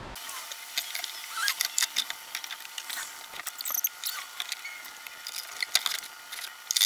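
Irregular clicks, taps and a few short high squeaks of hands and tools pulling apart a 12 V switch panel and its wiring inside a ute canopy.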